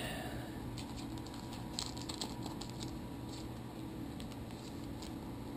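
Trading cards being handled: faint, scattered light clicks and ticks, several in the first half and a few later, over a low steady room hum.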